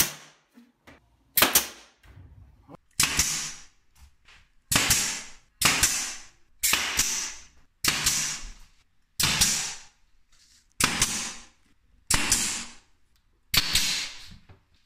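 RIDGID cordless brad nailer firing brads into window trim moulding: about eleven sharp shots, roughly one every second or so, each trailing off over about half a second.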